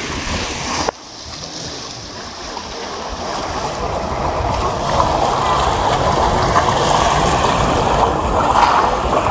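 Boats out on the water: a steady wash of engine and water noise with no clear tone. The sound drops suddenly about a second in, then builds up over the next few seconds and holds steady.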